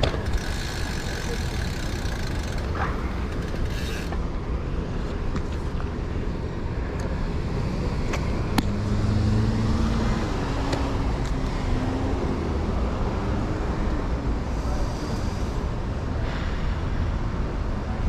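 City road traffic heard from a moving bicycle, under a steady low rumble of wind and road noise. A vehicle's engine hum comes and goes about eight to thirteen seconds in, with a sharp click near the middle.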